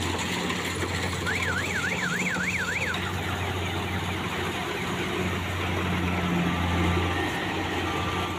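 Kubota Harvest King crawler combine harvester running as it cuts ripe rice: a steady low engine hum under a wash of machine noise. About a second in, a siren-like tone warbles up and down about three times a second for under two seconds.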